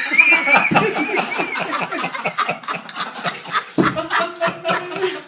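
Live audience laughing and clapping, with a high wavering squeal in the first second.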